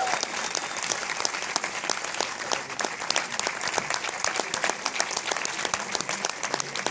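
Audience applauding: a dense, steady patter of many hands clapping, with no let-up.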